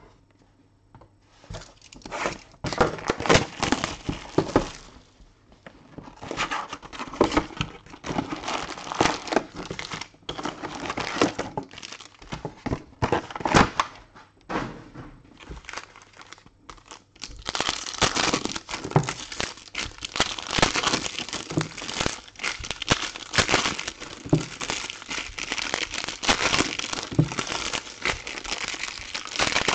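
Foil trading-card packs crinkling as they are handled, in uneven bursts at first, then steady crinkling and tearing from about 17 seconds in as the wrappers are torn open.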